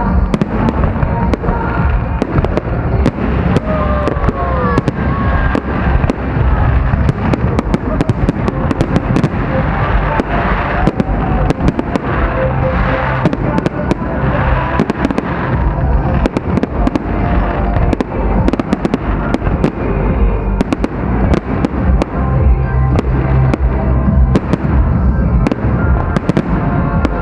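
Fireworks display with shells bursting in rapid succession, a dense, unbroken run of bangs and crackles over a heavy low rumble, with music playing underneath.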